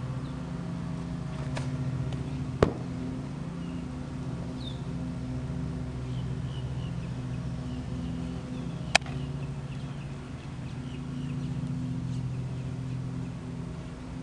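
A steady low droning hum throughout, with two sharp smacks about six seconds apart and faint high chirps of birds.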